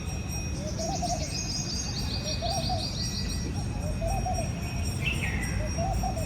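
Wild birds calling: a low call repeats about every second and a half to two seconds, and a rapid series of high notes falls gradually in pitch from about half a second in to past three seconds, with a short falling call near the end, over a steady low rumble.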